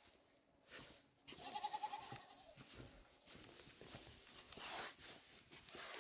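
A single wavering bleat from a farm animal, about a second and a half long, starting just over a second in.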